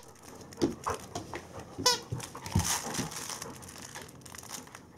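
A Bernese Mountain Dog mouths and tugs at a plush toy held in a hand, making the toy rustle and crinkle with several short soft strokes. There is one brief squeak about two seconds in.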